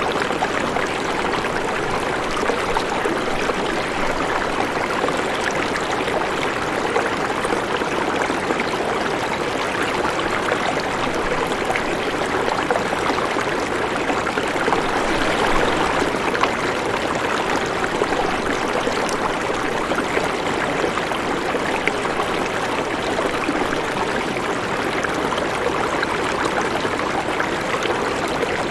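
Steady rushing water, like a flowing stream, running evenly without a break.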